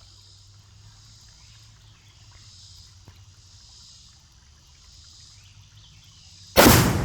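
Insects chirring steadily. About six and a half seconds in, a shot sets off the Tannerite binary exploding target in one sudden, very loud blast that dies away in a long rumble.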